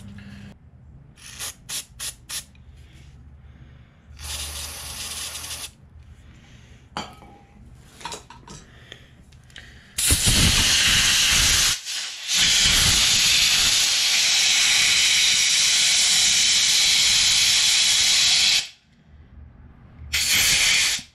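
Aerosol carburetor cleaner sprayed in several short hisses through a straw into a carburetor's venturi tube. About halfway through, a compressed-air blow gun starts hissing loudly and evenly for about eight seconds, with a brief break, blowing out the tube. A last short blast comes near the end.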